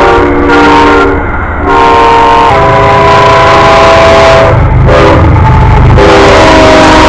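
Diesel locomotive air horns sounding loud chords of several notes over the low rumble of a passing train. The chord breaks off and changes abruptly several times, as short horn clips are cut together.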